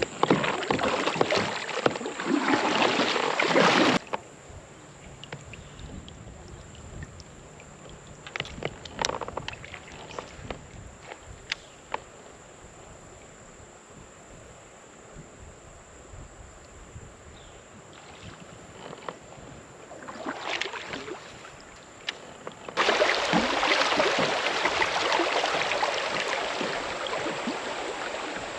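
Water splashing and rushing around a kayak as it is paddled on a creek. It is loud for the first four seconds and again for the last six, with a quieter stretch of scattered light knocks and clicks between.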